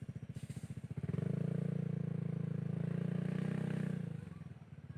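Motorcycle engine running with a steady pulsing beat; the throttle opens about a second in, the engine runs louder for about three seconds, then eases back off.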